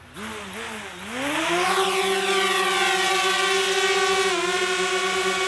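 DJI Spark quadcopter's motors and propellers spinning up for takeoff: two short whirs that rise and fall, then a rising whine that settles about a second and a half in into a steady high buzzing hover, dipping briefly in pitch late on.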